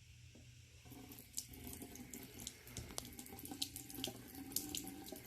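Water trickling from a faucet into a sink, with irregular splashes and drips starting about a second in.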